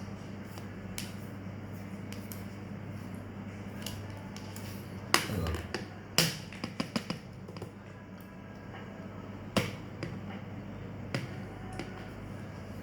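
A few sharp clicks and knocks, a cluster of them in the middle, over a steady low electrical-sounding hum.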